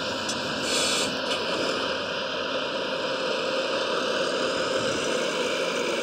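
Steady whirring of a large RC dump truck's electric gear motors running, with a brief burst of hiss about a second in.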